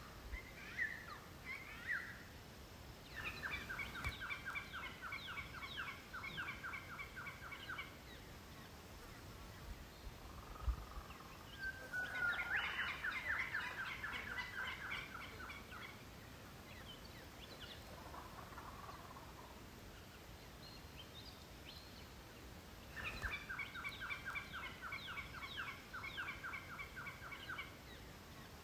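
Wild birds calling outdoors. A long run of rapid, evenly spaced notes comes about three seconds in, another call about twelve seconds in, and the same rapid run again near the end.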